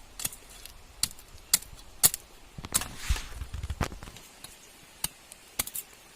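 A blade chopping: a string of sharp, irregular knocks, some about half a second apart, with a short low rumble about three seconds in.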